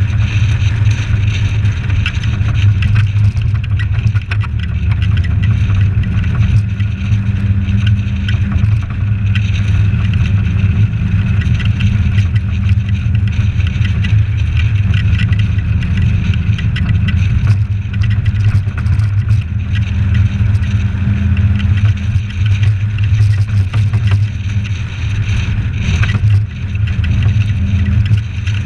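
Suzuki Samurai 4x4 cruising on the road, a steady low engine drone mixed with road and wind noise. It is picked up by a camera in its sealed housing, which the uploader says doesn't capture the sound quite right.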